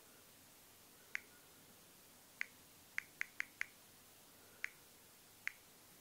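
Eight short touch-feedback clicks from an LG L40 smartphone as its stopwatch is started, lapped, stopped and reset: single clicks, then a quick run of four about a fifth of a second apart, then two more spaced out.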